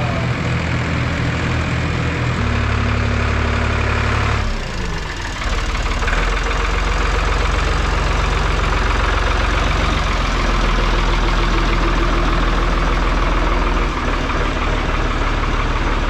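A Ford backhoe loader's engine runs close by as the machine pulls in. The engine note shifts pitch a couple of times in the first few seconds and turns noisier from about six seconds in.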